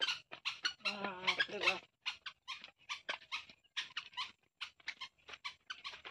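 A small dog whining, with a wavering whine about a second in, followed by a run of short, soft taps of footsteps on a dirt path.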